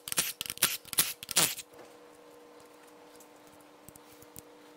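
Cordless impact wrench spinning rocker arm nuts off a big-block Chevy cylinder head in a quick run of short trigger bursts, stopping about one and a half seconds in. Then faint metallic clicks as the loosened rockers are handled, over a faint steady hum.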